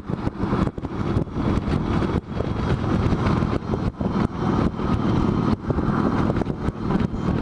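Steady road noise from a moving vehicle: engine and wind rumble with frequent brief dips.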